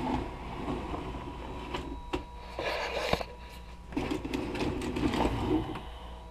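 Scattered handling noise, rustling with a few sharp knocks, over a steady electrical hum.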